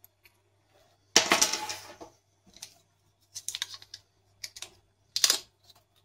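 Hands handling plastic and paper packaging of phone earphones: a string of short rustles, the loudest about a second in, with four smaller ones after it.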